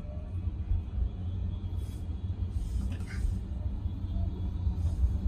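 Low road and tyre rumble inside the cabin of an ARCFOX electric car as it picks up speed in city traffic, with a brief faint hiss about two to three seconds in.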